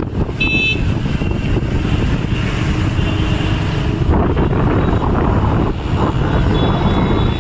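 Wind buffeting the microphone over steady road and traffic noise from a vehicle moving along a rain-wet road. A short high beep sounds about half a second in.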